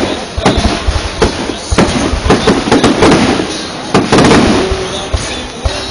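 Fireworks display: a dense, irregular run of loud bangs and pops from exploding aerial shells, following one another every half second or so.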